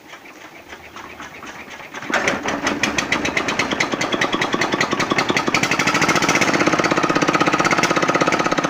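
Small diesel engine of a mini concrete mixer being hand-cranked, catching about two seconds in and then running with a loud, fast, even knock.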